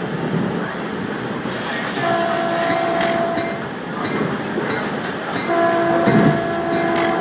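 Train horn sounding two long blasts, each about a second and a half to two seconds long, over the steady rumble of the moving train, as it nears a level crossing.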